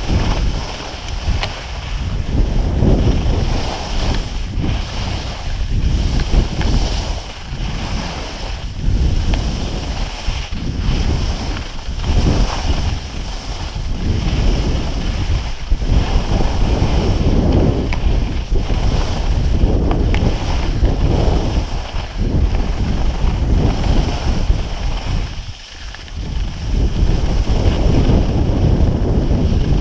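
Wind rushing over a skier's action-camera microphone, mixed with skis hissing and scraping over groomed snow. The noise swells and eases every second or two as the skier turns, with a brief lull about three-quarters of the way through.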